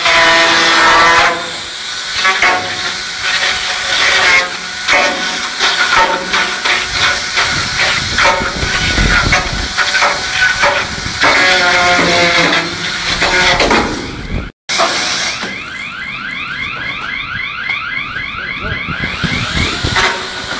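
Handheld power saw running and cutting through fibrous insulation packed against steel plating, its motor pitch rising and falling with the load. After a brief dropout about two-thirds through, it runs with a rapidly repeating rising whine.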